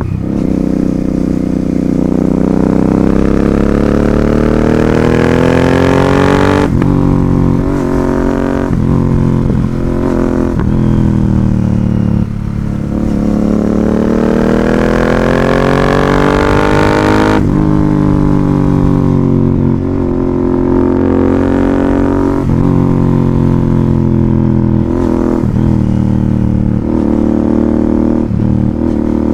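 Royal Enfield Continental GT 650's parallel-twin engine through an aftermarket Ixil exhaust, accelerating through the gears: the pitch climbs and falls away at three upshifts in the first half, then shorter bursts of throttle with quick dips in the second half.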